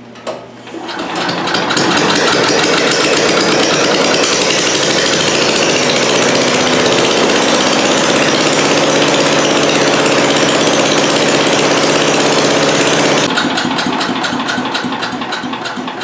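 Small single-cylinder replacement engine on a tow-behind leaf vacuum started up and running loud and steady without a muffler, driving the new modified impeller, which the owner judges unbalanced with a wobble but running all right. About thirteen seconds in the sound drops and fades as the engine is brought down.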